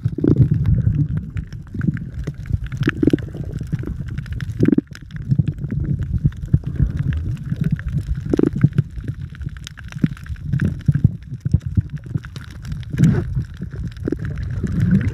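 Muffled underwater rumble and sloshing picked up by a smartphone's microphone held under seawater, with frequent dull knocks from water movement and handling of the phone.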